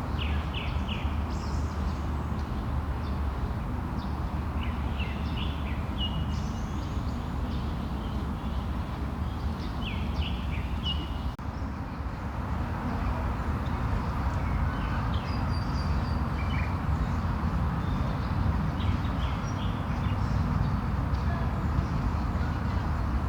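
Birds chirping in short clusters of quick calls, repeated every few seconds, over a steady low hum of distant traffic.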